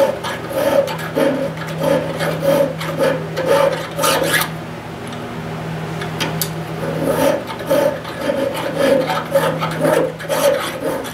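Hand file rasping back and forth, about two strokes a second, cutting down a brass braze bead on a tractor clutch-rod part. The filing stops for a couple of seconds midway, then resumes.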